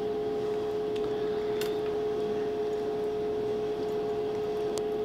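A steady electrical hum holding one constant tone, with two faint clicks, one after about a second and a half and one near the end.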